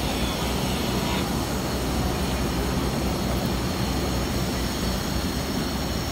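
A train running on the rails: a steady rumble with a faint high whine over it.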